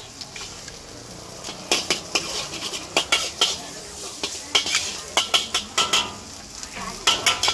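Metal spatula scraping and clanking against a large wok as char koay teow is stir-fried, with a faint sizzle underneath. The clanks come at irregular intervals, sparse for the first second and a half and then frequent.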